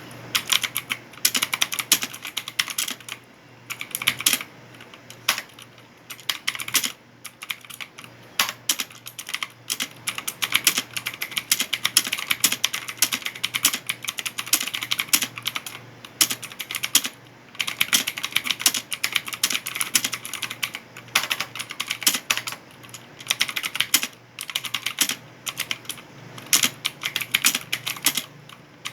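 Gigaware K30 computer keyboard being typed on quickly: rapid runs of key clicks and clacks, broken by brief pauses every few seconds.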